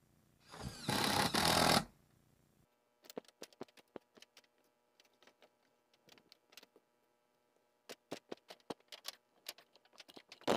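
A power drill spins up briefly, about half a second to just under two seconds in, with a rising whine, as if driving a screw into metal roofing. Scattered light clicks and ticks follow for the rest of the time.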